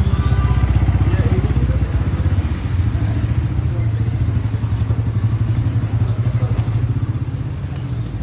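A small motor vehicle engine running steadily, with a fast, low pulsing throughout.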